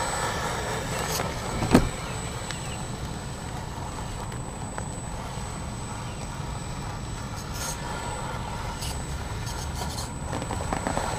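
Radio-controlled crawler truck (BoomRacing short-wheelbase build) crawling over concrete steps: low drivetrain and tyre noise on the concrete, with one sharp knock a little under two seconds in.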